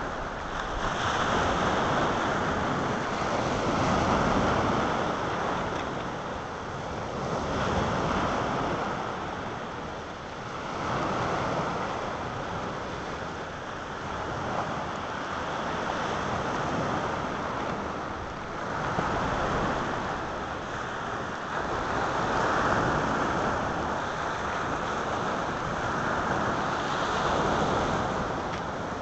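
Sea waves breaking on a pebble shore, swelling and ebbing every few seconds, with wind on the microphone.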